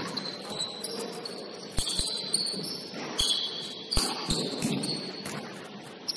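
A basketball bouncing on a gym court, thumping at irregular intervals, with sneakers squeaking on the floor in many short, high-pitched chirps.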